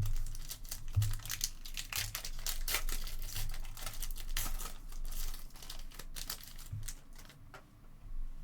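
Foil trading-card pack wrapper being torn open and crinkled by hand: a dense, irregular crackling that thins out near the end, with a few soft knocks of handling.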